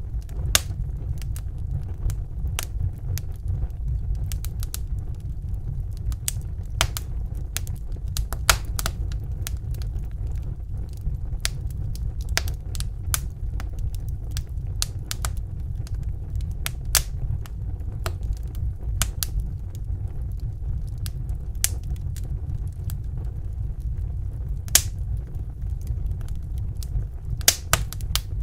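Wood fire burning in a fireplace, crackling: irregular sharp pops, some louder than others, over a steady low rumble.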